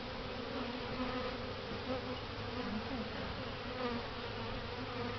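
Honeybees buzzing around an open hive: a steady hum of many bees in flight, with wavering pitches drifting up and down as individual bees pass.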